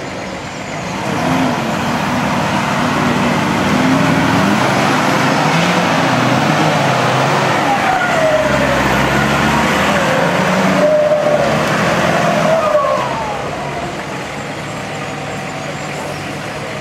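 Nissan Patrol Y61 4x4's engine revving hard under load as it climbs a muddy slope, its pitch rising and falling. It gets loud about a second in and drops back to a lower steady run about thirteen seconds in.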